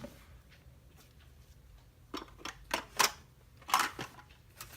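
Scattered sharp clicks and clacks of padlocks and lock-picking gear being handled and set down, about half a dozen, the loudest about three seconds in and again just before four.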